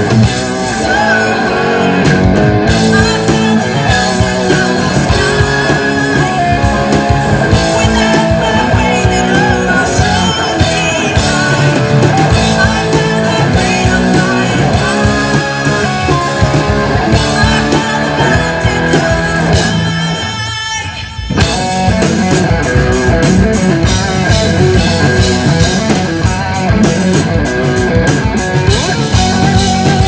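Heavy metal band playing live: distorted electric guitars, bass and drum kit with a female lead vocal. The band drops out briefly about two-thirds of the way through, then comes back in at full level.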